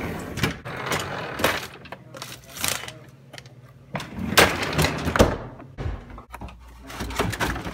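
Rummaging in a freezer drawer: irregular knocks, rustling and clatter of frozen packages and ice cubes being moved about, loudest about four to five seconds in. Near the end a plastic ice cream tub is set down on a stone counter.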